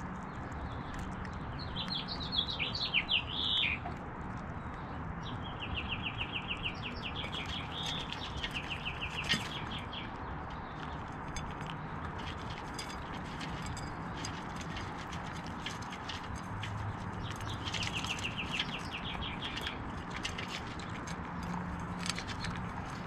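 Songbirds chirping in rapid trills of evenly repeated high notes, about two, six and eighteen seconds in, the loudest near the start, over a steady background hiss. Scattered short clicks and crunches come from a California ground squirrel nibbling seed and nut mix from a feeder dish beside the microphone.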